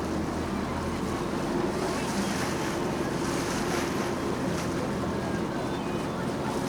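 Tour boat under way: a steady low engine drone under water rushing past the hull, with wind buffeting the microphone in a few brief gusts.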